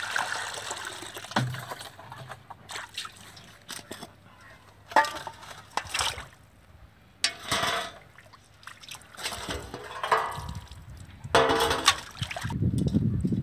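Water pouring, splashing and sloshing in a metal basin as raw fish steaks are tipped in and rubbed clean by hand, with a few sharp knocks of the steel bowls against each other.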